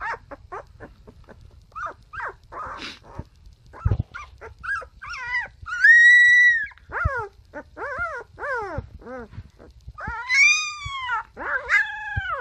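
Young husky puppy giving short squeaky yips, then high-pitched howls. About six seconds in comes one held note, then several short wails that rise and fall, and a longer wail near the end.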